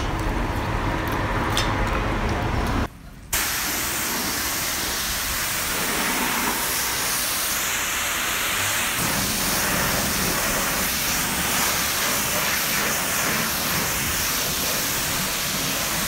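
A car-wash pressure lance spraying soapy water onto a car's body and windows: a steady hiss. Before it, about three seconds of low room noise with a few light clicks, which cuts off abruptly.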